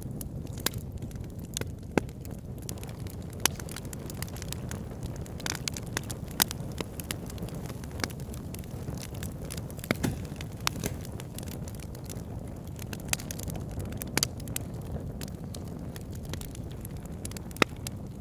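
Wood fire burning in a fireplace: a steady low rumble of flames with irregular crackles and a few sharp, louder pops.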